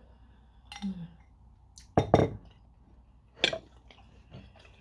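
Spoon and ceramic bowl clinking as the bowl is handled and set down: two sharp clinks close together about two seconds in, the loudest, and another about a second and a half later.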